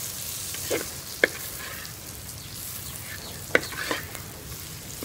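Metal ladle stirring and scraping chicken fry in an earthenware pot over a steady sizzle, with sharp knocks of the ladle against the pot about a second in and again just past halfway.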